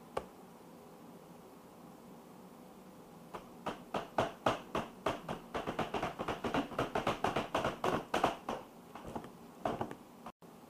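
A rapid run of light taps or clatters, several a second, starting about three seconds in and lasting about six seconds, after a single click at the very start.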